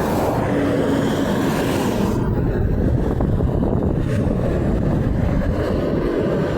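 Steady roadside traffic noise from passing vehicles, with wind on the microphone. No horn sounds.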